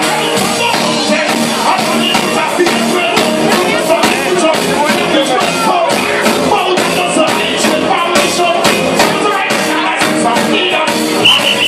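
Loud reggae music with a steady beat and a singing voice.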